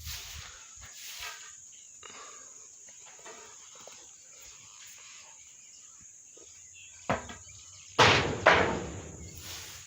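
Quiet farmyard background with insects chirring faintly, then three loud sudden noises late on, each fading away over about half a second.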